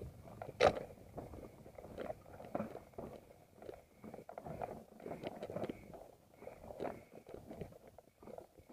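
Mountain bike rolling down a rough dirt singletrack: irregular crunching and rattling of the tyres over loose dirt and stones, with a sharp knock about a second in.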